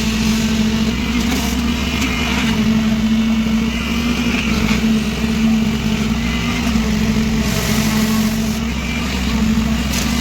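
Concrete vibrator's motor running steadily with a constant hum while the vibrator works in wet concrete.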